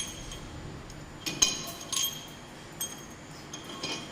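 Metal tools and parts clinking against each other during generator repair work: about half a dozen sharp clinks at irregular intervals, some ringing briefly.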